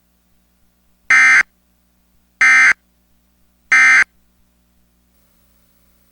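Emergency Alert System end-of-message signal: three short, loud bursts of SAME digital data tones, each about a third of a second long and about 1.3 seconds apart, marking the end of the alert.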